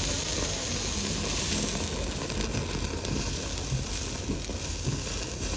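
Thick slice of A5 Kuroge wagyu steak sizzling on a gas yakiniku grill grate: a steady hiss of fat frying and spitting.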